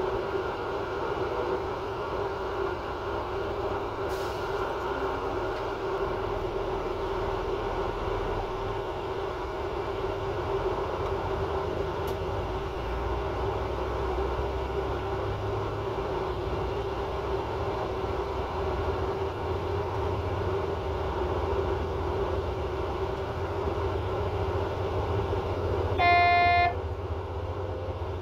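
Regional passenger train running along the line, heard from inside its cab: a steady rumble with a constant hum. Near the end the train's horn gives one short toot, the loudest sound here.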